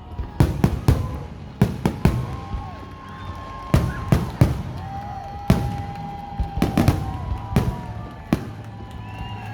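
Fireworks going off: many sharp bangs in irregular clusters, some in quick runs of two or three. Between them come a couple of long, steady whistling tones, each held for about two seconds.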